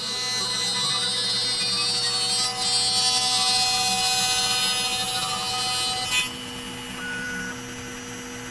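Compact trim router on a LongMill Mk2 CNC router running steadily as it carves a wooden sign, with the dust-extraction vacuum running as well. It is a steady whine over hiss, and it drops in level about six seconds in.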